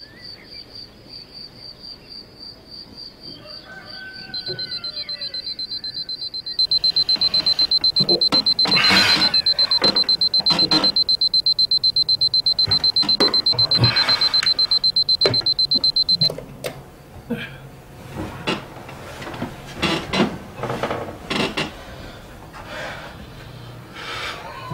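Alarm clock ringing in a rapid, high-pitched pulsing ring: faint at first, much louder about seven seconds in, then cut off abruptly about sixteen seconds in. After it come scattered rustles and knocks of someone stirring in bed.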